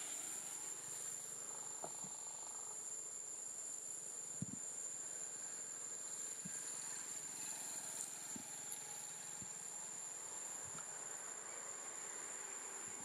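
Insects droning in the trees: a continuous, steady high-pitched buzz, with a few faint, brief low knocks.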